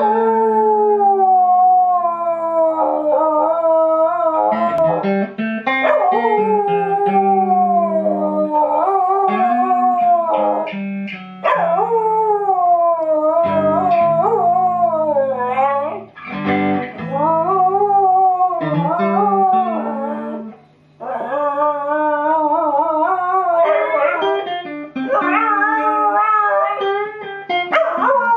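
West Highland white terrier howling along to an electric guitar played through an amplifier. The dog's long, wavering howls glide up and down in pitch and break off every few seconds, over the guitar's sustained notes.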